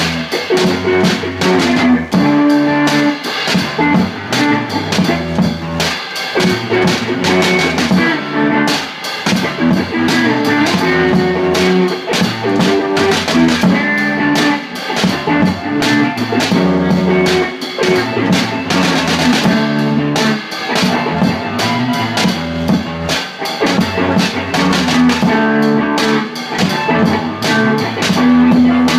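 Music: a band track with guitar and a drum kit playing a steady beat.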